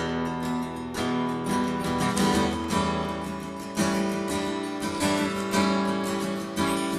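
Music: a strummed acoustic guitar playing chords, without singing.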